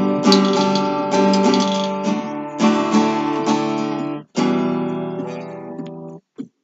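Acoustic guitar strummed in the campfire rhythm at about 80 beats a minute, chords changing as it goes. After a short break a little past four seconds, a final chord rings out and is damped near the end.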